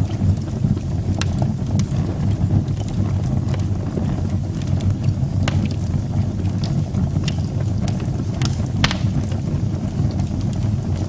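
Wood fire burning in a fireplace: a steady low rumble from the flames with scattered sharp crackles and pops, the loudest about three quarters of the way through.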